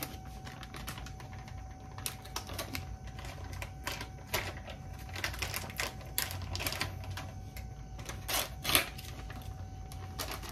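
Irregular clicks and short crinkling rustles of a plastic bag of shredded mozzarella being handled, with the loudest cluster about 8 to 9 seconds in. A faint steady tone runs underneath.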